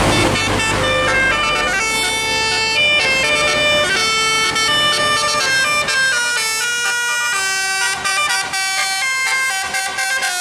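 Bus 'telolet' musical air horn playing a fast tune of short stepped notes, with the bus's engine noise fading away at the start.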